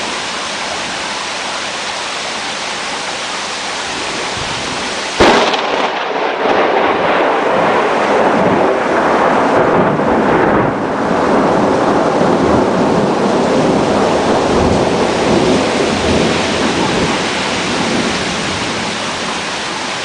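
Steady rain, then about five seconds in a sudden sharp thunderclap from a lightning strike, followed by thunder rumbling on for over ten seconds and slowly fading under the rain.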